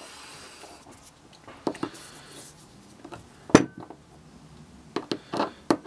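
Small metal clicks and clinks of a disassembled two-stroke chainsaw carburetor and a screwdriver being handled on a tabletop, with one sharper metallic click that rings briefly about three and a half seconds in.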